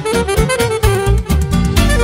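Live Moldovan wedding band music: electric violin leading the melody over saxophone and accordion, with a steady driving beat and heavy bass.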